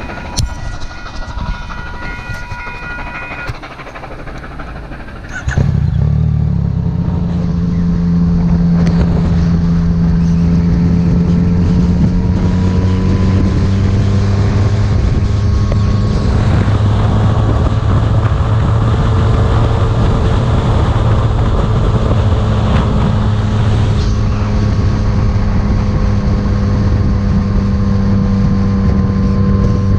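Level-crossing warning bells ringing for the first few seconds, then a 2015 Yamaha MT-09's three-cylinder engine pulls away suddenly about five seconds in, its pitch rising slowly as it accelerates before holding steady at cruising speed.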